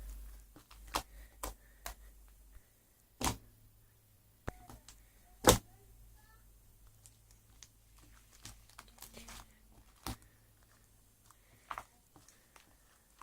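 Scattered sharp clicks and knocks, the loudest about five and a half seconds in, over a low steady hum.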